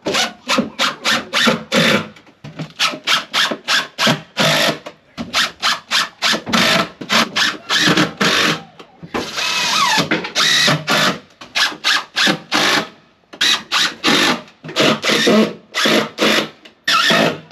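Cordless drill-driver driving screws into plywood in many short trigger bursts, each starting and stopping sharply, with a few longer runs about halfway through and near the end.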